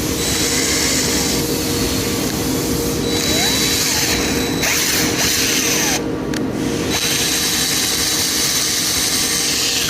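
CNC machine running: a steady hum, with a hissing noise that starts and stops several times and a few faint rising and falling whines.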